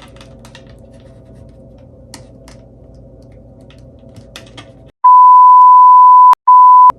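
Light scattered clicks of a phone's casing being pried at by hand. About five seconds in, the room sound cuts out and a loud, steady, high censor bleep comes in, in two parts with a short break, covering a swear word.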